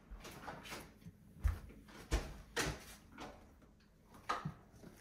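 Glass storage jars with metal lids being set down and moved about on a pantry shelf: about five separate knocks and clinks.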